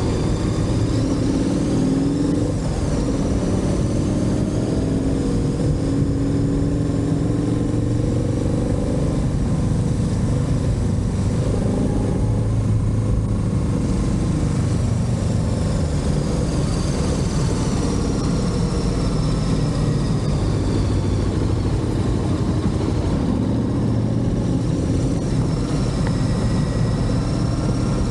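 Motorcycle engine running under way, its pitch rising and falling several times as the rider accelerates and eases off.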